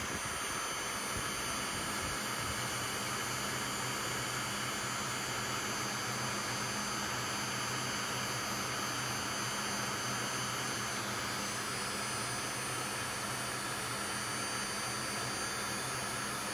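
Electric heat gun running steadily, blowing hot air onto a solder seal wire connector to melt its solder ring and shrink the tubing: an even rush of air with a low motor hum.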